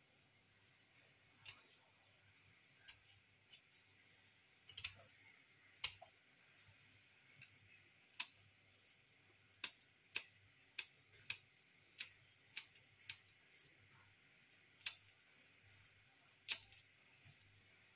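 Kitchen scissors snipping through the shells of raw prawns to cut out the vein, heard as a string of sharp, irregular clicks that come faster in the second half.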